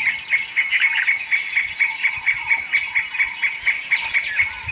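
Steady, rhythmic pulsing call of a small animal, about five pulses a second, running on without a break.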